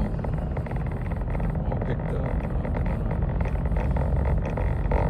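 Car driving, steady engine and road noise heard from inside the cabin.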